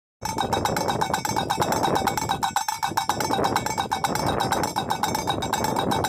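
Bird-scaring windmill turning in the wind, its striker clanking rapidly against the tin cans on its frame, many ringing metallic strikes a second. A low rush of wind runs underneath.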